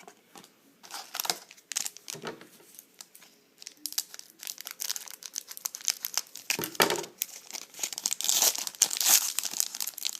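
Foil trading-card pack wrapper crinkling and tearing as it is opened and handled, in scattered crackles at first and dense, louder crackling from about four seconds in.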